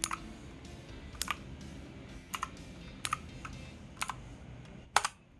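Clicky blue-switch mechanical keyboard, the Redgear Shadow Blade, with single keys pressed slowly, about one sharp click a second, some in quick pairs.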